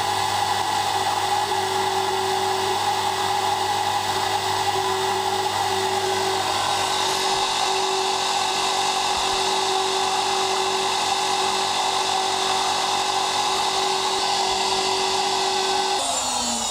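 High-speed engraving spindle cutting lettering into a small metal plate, a steady high whine with a rough cutting hiss. Near the end the cutting stops and the spindle winds down, its pitch falling.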